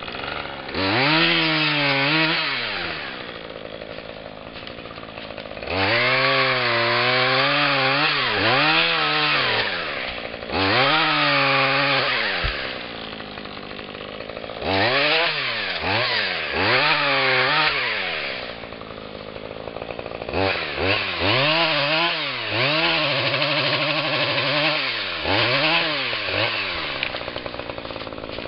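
Husqvarna 535 FBx backpack chainsaw's two-stroke engine revving up to full throttle and back down, about five times, as it saws through small beech stems, dropping back toward idle between cuts.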